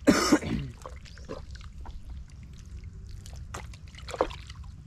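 Thick wet mud squelching and sloshing as rubber boots are pulled through it and a hand digs into it, with a loud sucking squelch right at the start and another about four seconds in, between smaller wet clicks and splashes.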